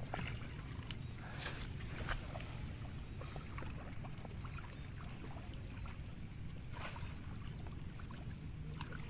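Riverside ambience: a steady high-pitched insect drone, typical of crickets, over a low even rumble, with scattered faint clicks and ticks.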